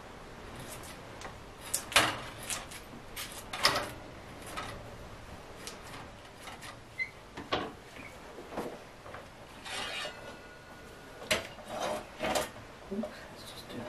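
Irregular clinks, knocks and short scrapes of a plastic tool worked around the inside of metal cake tins and the tins handled on a wire cooling rack, loosening baked sponges.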